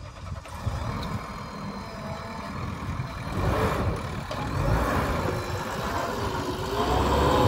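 JCB 3DX Super backhoe loader's diesel engine working under load as the front loader bucket pushes into logs, growing louder. In the second half a whine rises and falls in pitch.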